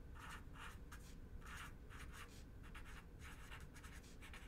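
Felt-tip marker writing on paper: a faint run of short scratchy strokes, about two to three a second, as letters are drawn.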